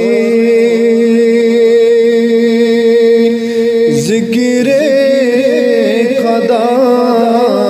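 Man singing a Kashmiri devotional song (hamd) with strong reverb, holding one long note with vibrato for about four seconds before moving into a winding melodic line.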